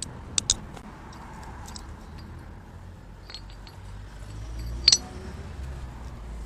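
Metal parts clinking as gearbox gears and tools are handled: a few sharp clicks near the start and a loud clink about five seconds in, over a low rumble.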